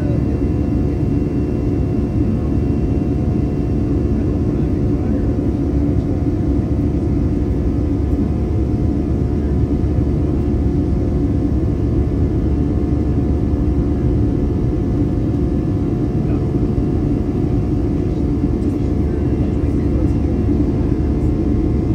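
Steady cabin noise of a jet airliner heard from a seat over the wing: an even low rumble of engine and air noise with several steady droning tones, unchanging in level.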